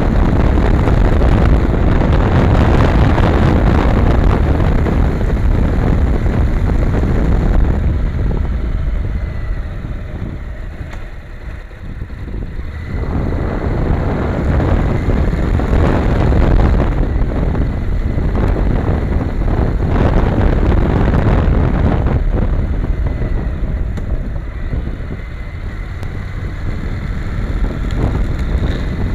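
Riding noise from a camera on a Honda NC700X motorcycle in motion: wind buffeting on the microphone over the 670 cc parallel-twin engine and the tyres on the road. It quietens twice, about ten seconds in and again a few seconds before the end.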